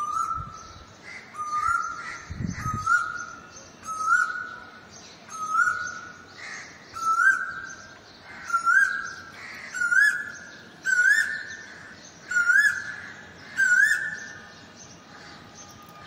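Asian koel calling: a repeated rising 'ko-el' whistle, about eleven calls roughly one and a half seconds apart, each pitched a little higher and louder than the last.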